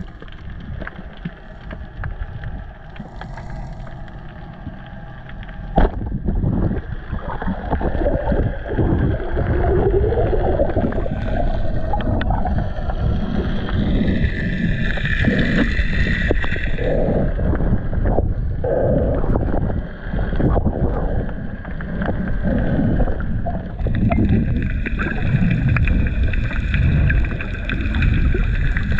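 Underwater water noise heard through a diver's camera housing: rushing and gurgling water as a spearfisher moves. A single sharp click comes about six seconds in, and the churning water is louder after it.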